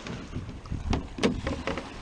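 Gear knocking against a kayak: four sharp knocks close together starting about a second in, over wind rumbling on the microphone.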